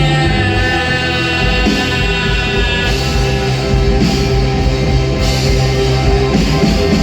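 Rock music played live by a band, with singing over guitar and drums.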